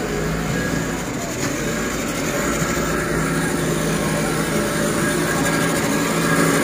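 Glass-bottom tour boat's engine running steadily at low speed, a constant even drone.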